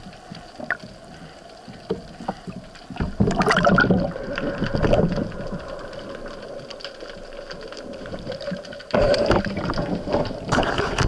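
Sea water splashing, sloshing and bubbling against an underwater camera at the surface as a spearfisher handles a speared fish, in loud bouts about three seconds in and again near the end, over a steady faint hum.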